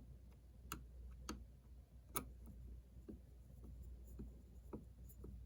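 Faint, irregular clicks and ticks of a small screw being turned by hand screwdriver into the plastic case of a Spektrum DX6i transmitter: backed off until its thread clicks into place, then driven in. The sharpest click comes about two seconds in.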